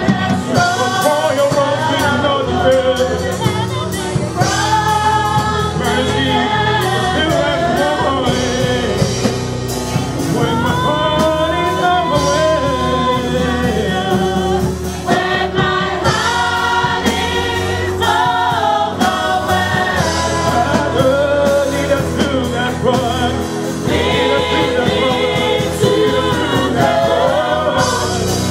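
Gospel worship singing: a male worship leader and a group of women backing singers sing together into microphones, backed by the live band.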